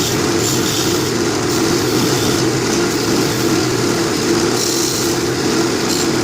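Wood lathe running with a turning tool cutting into a spinning cherry blank: a steady hum with a continuous hiss of cutting as the blank is brought down toward its measured diameter.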